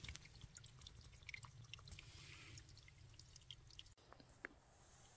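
Faint dripping and trickling of a slow spring seep running into a collapsible water pouch: a scatter of small irregular drips. The drips thin out after a cut about four seconds in.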